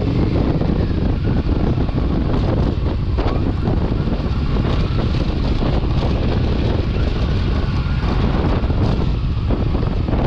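Kawasaki Versys 650 parallel-twin motorcycle riding along at a steady pace, its engine partly covered by wind buffeting on the microphone.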